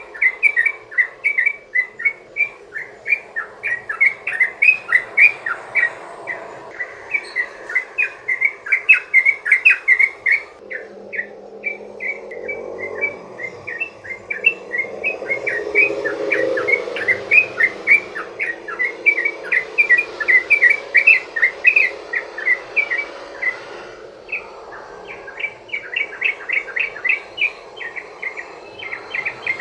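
Yellow-vented bulbul (trucukan) singing a long, rapid run of sharp, bubbly notes, several a second, in the fast-chattering 'ropel' style used as a lure call. A low rushing noise rises under the song in the middle and fades again.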